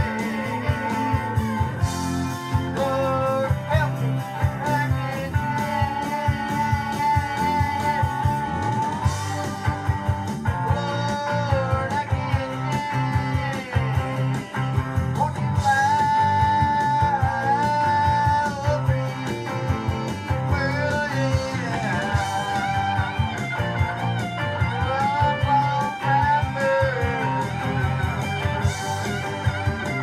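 Southern rock music: electric guitar lead lines, held and bent, over bass and a steady drum beat.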